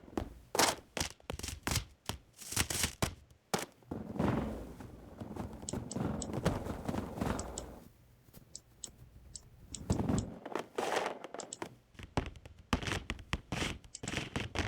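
AI-generated footstep sounds from a RAVE variational autoencoder trained on footsteps, its latent variables swept together: an irregular run of clicks, thuds and crunches, with longer scraping, dragging sounds in the middle.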